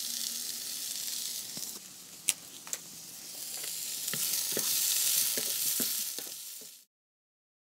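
Artichoke pieces sizzling in olive oil in a non-stick frying pan, with a few sharp clicks of a wooden spatula against the pan as they are stirred. The sizzle cuts off suddenly about seven seconds in.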